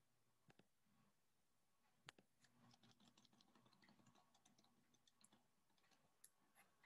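Near silence broken by faint computer mouse clicks: a few scattered single clicks, with a quick run of them between about two and four and a half seconds in.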